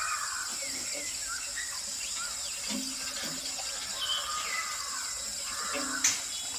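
Outdoor ambience: birds giving short scattered chirps over a steady high insect drone.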